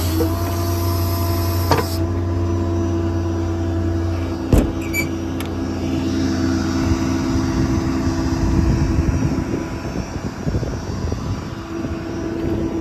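Ford F550's 6.7 diesel engine running and driving the hydraulic system with a steady hum as the hydraulic outriggers are retracted, with a single sharp clunk about four and a half seconds in. After about seven seconds the steady hum gives way to an uneven rumble.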